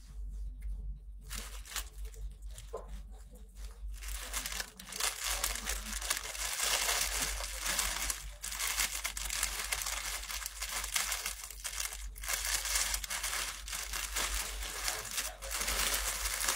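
Crinkly packaging rustling and crackling as it is handled, growing busier and louder about four seconds in and going on unbroken.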